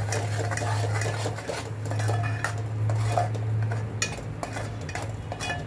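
Metal spoon stirring thick masala gravy in an aluminium pot, scraping and clinking against the pot's sides and bottom again and again, over a steady low hum.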